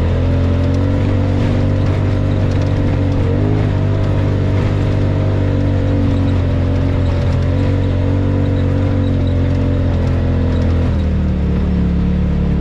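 Side-by-side UTV engine running steadily while driving a dirt trail. The engine note wavers briefly about three seconds in and changes again near the end.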